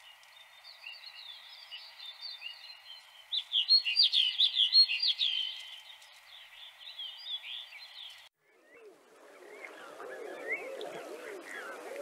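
Snow bunting singing short twittering phrases over a light hiss, loudest about three to five seconds in. A little after eight seconds this gives way to a flock of common eiders giving low, wavering coos on open water, with higher chirps among them.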